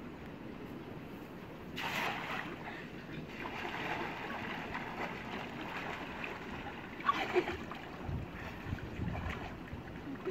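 Water splashing and sloshing as people wade and swim through a shallow muddy canal pool. There is a loud splash about two seconds in and another burst of splashing around seven seconds in.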